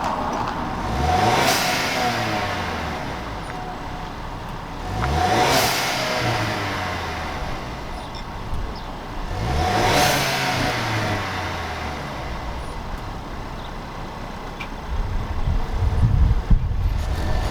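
Ford Maverick's four-cylinder engine through a Thermal R&D cat-back exhaust, revved three times from idle, each rev rising quickly and falling back over a couple of seconds. Wind buffets the microphone near the end.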